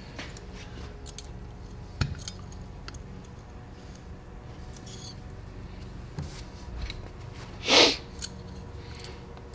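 Small clicks and taps of suspension fork parts being handled and fitted together by hand, with a sharp click about two seconds in and a brief, louder rasping noise near the end.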